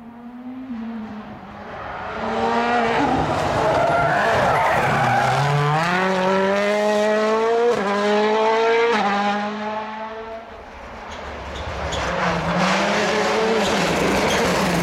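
Rally car engine accelerating hard and climbing in pitch, with quick upshifts about eight and nine seconds in, as the car passes. After a brief dip, engine sound builds again near the end.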